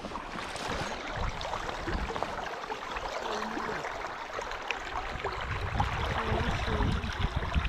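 Steady rushing of flowing river water, with a low rumble under it.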